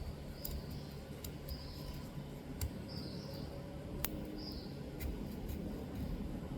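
Metal tweezer tip scraping dirt out of a phone's USB-C charging port: short high scratchy squeaks every half second or so, with small sharp clicks as the tip knocks the port's metal, one louder click about four seconds in.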